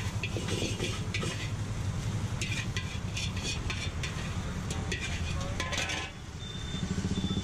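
Metal spatula scraping and clanking against a large iron wok in quick repeated strokes, over a steady low hum. The scraping stops about six seconds in.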